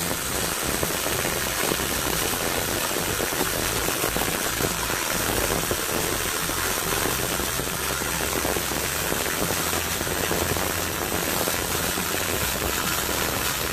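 MIG welding arc on aluminium plate burning steadily as the wire feeds: a continuous crackling hiss, with no breaks, while the last pass of a multi-pass fillet weld is laid.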